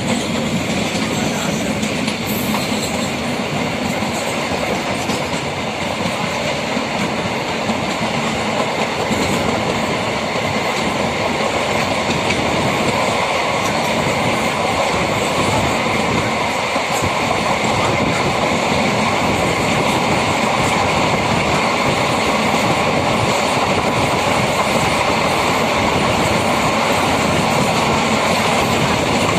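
MEMU electric multiple-unit train running along the line, heard from inside the coach: a steady rumble and rattle of wheels on rail, getting a little louder about two-thirds of the way through.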